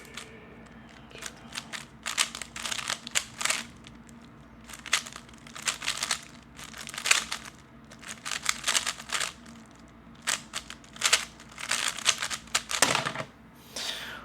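A 3x3 speedcube being turned fast, its layers clicking and rattling in quick bursts of moves with short pauses between them.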